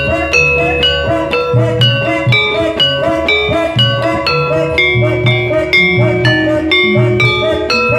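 Javanese gamelan music for an ebeg horse dance: metallophones strike a brisk, ringing melody, about four notes a second, over drumming.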